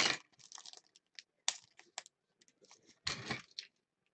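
A trading-card box and a wrapped card pack being handled: scattered light clicks and taps, with a brief rustle at the start and another about three seconds in.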